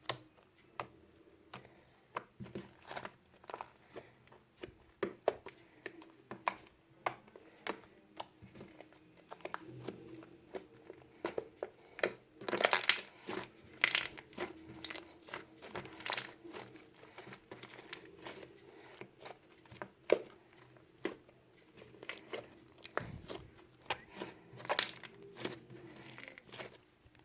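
Freshly made glue slime with shaving foam and borax activator being squeezed and stretched by hand, giving irregular sticky crackles and small pops.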